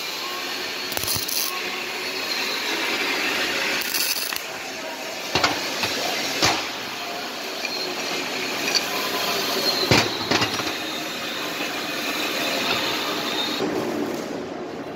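Steady machinery hum of a steel fabrication hall, with three sharp metallic clinks as welded steel parts are handled.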